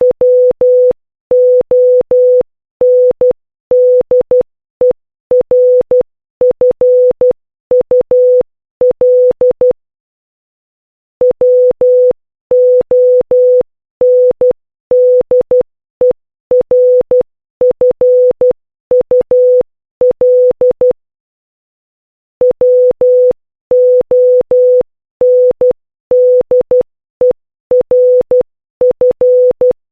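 Morse code sent as an electronic beep tone of a single steady pitch, keyed in short dots and longer dashes. The beeping comes in three runs, with pauses of about a second between them.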